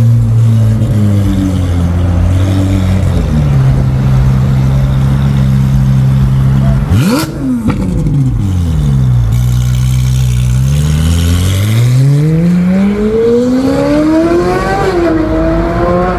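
Ferrari 458 Italia's naturally aspirated V8 running, with one quick rev blip about seven seconds in. Near the end the revs climb steadily for a few seconds, dip briefly and climb again.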